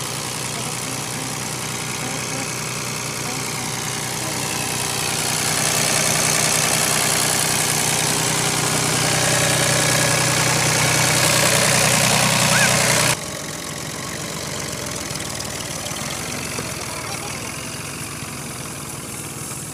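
Farm tractor's diesel engine running steadily, growing louder and busier from about 5 seconds in. About 13 seconds in it cuts off abruptly to a quieter engine sound.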